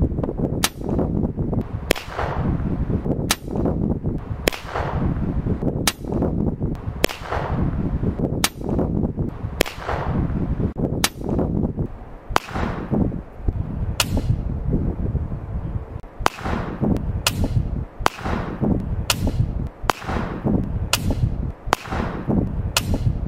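A long series of sharp shots from an AirForce Talon P, a PCP air pistol, each a short crack with a brief ring-off, over a steady low rumble. The shots come about once every second and a bit, closer together in the second half.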